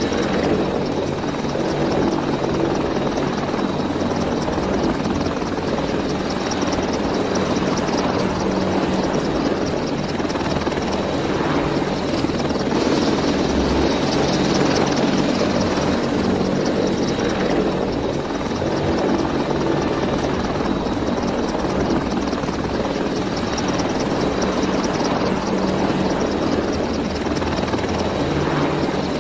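Helicopter in flight: steady rotor and turbine noise with a fast, even blade chop throughout.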